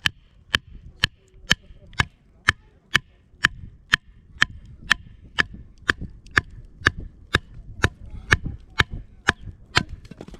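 Chopping wood for kindling: sharp, evenly paced strikes, about two a second, some twenty in all.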